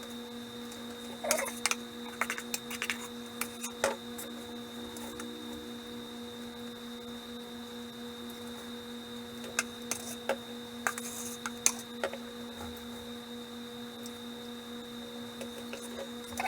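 Steady electrical hum with a high whine, under scattered light clicks and scrapes of a spoon working frosting onto a pan.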